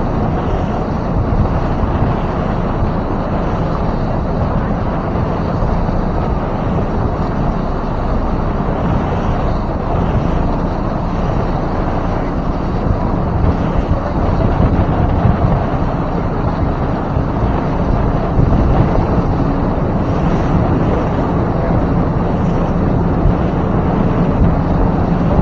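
Motorboat under way through big waves: a steady engine hum under loud rushing wind on the microphone and water noise, the hum growing a little stronger near the end.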